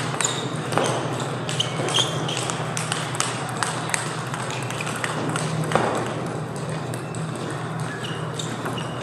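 Table tennis balls clicking off bats and tables at irregular intervals from several practice tables, over a steady low hum, with faint voices.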